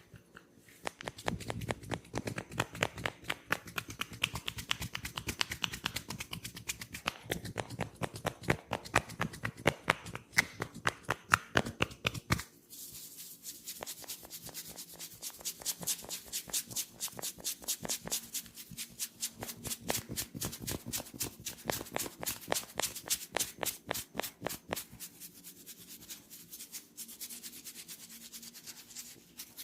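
Hands rapidly and rhythmically tapping and rubbing on a person's head and ears during a head massage. The strokes change character about twelve seconds in, becoming brighter and thinner.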